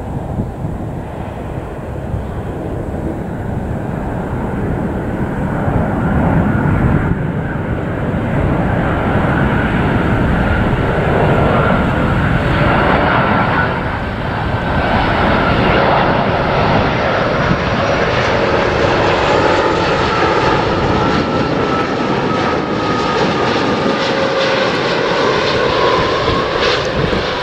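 Airbus A330-300 airliner on final approach, its two jet engines running with a deep rumble that builds over the first six seconds as it comes close. Whining engine tones slowly drop in pitch as it passes by.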